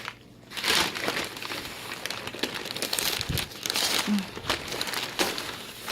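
Plant packaging being pulled open by hand: irregular crinkling and rustling of wrapping material, starting after a brief hush.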